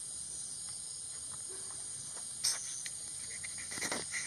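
Night insect chorus, crickets and other insects trilling steadily at a high pitch. A sharp click comes about two and a half seconds in, and a few short cracks and clicks near the end.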